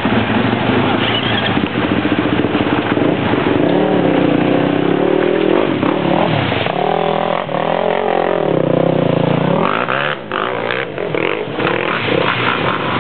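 Quad bike (ATV) engines revving, the note rising and falling repeatedly as the quads drive through a shallow stream ford, with water splashing.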